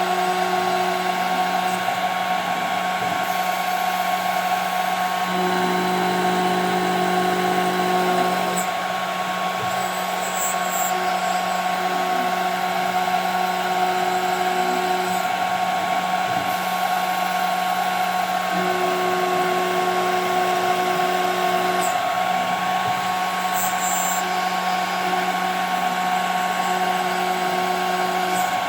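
CNC router spindle running at a steady high whine as it cuts 5 mm plexiglass, with a lower motor hum that starts and stops every few seconds as the machine moves.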